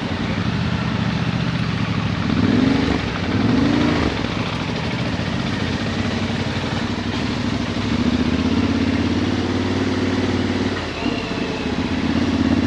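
Yamaha Ténéré 700's parallel-twin engine running at low revs, with two brief throttle rises a few seconds in, then holding steady.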